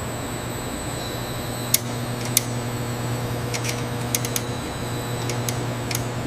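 Factory machinery running with a steady hum and a faint high whine, with a few sharp metallic clicks scattered through it.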